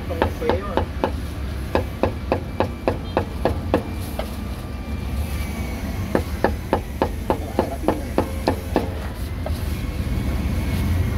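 Cleaver chopping roast meat on a chopping block: two runs of quick, even strokes, about three or four a second, with a pause of a couple of seconds between them.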